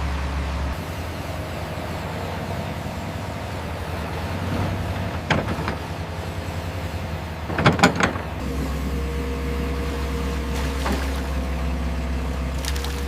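Radio-controlled construction machine running with a steady low engine-like hum, which drops away about a second in and returns near the middle. Several sharp knocks in the middle, the loudest a short clattering cluster just before the hum returns.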